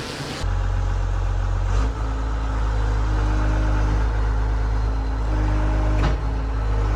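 Engine of heavy demolition equipment running steadily with a low hum, starting about half a second in.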